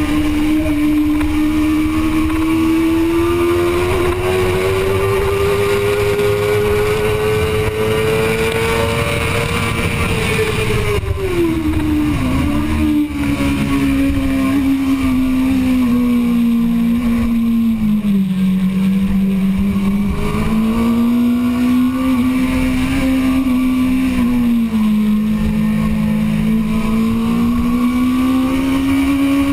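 Suzuki GSX-R600 inline-four engine running hard at high revs on track. Its pitch climbs through the first ten seconds, falls sharply about eleven seconds in, dips again a little past the middle, then builds again.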